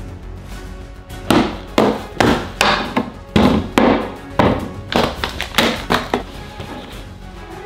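About a dozen knocks in quick succession as food boxes, bottles and packages are set down one after another on a wooden countertop, over background music.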